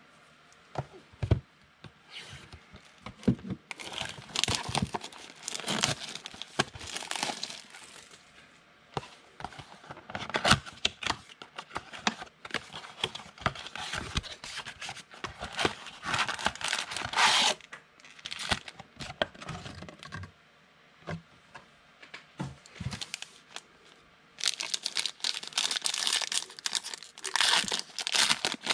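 Packaging of a 2020 Donruss football trading-card box being torn and the cardboard box opened, with irregular rustling, tearing and sharp clicks. About three-quarters of the way through, a dense stretch of foil crinkling starts as a foil card pack is handled and torn open.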